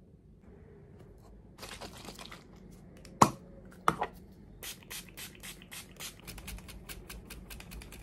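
Books and paper being handled for the trash: rustling and tearing of pages, with two sharp knocks a little after three seconds and near four seconds, then a quick run of crinkles.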